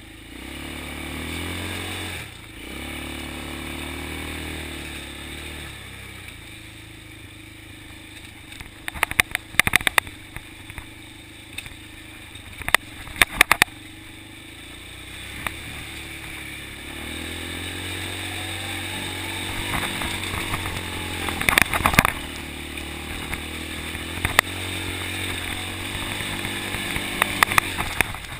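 ATV engine being ridden, its pitch rising and falling as the throttle is opened and closed. Several bursts of sharp clatter break in through the middle and near the end.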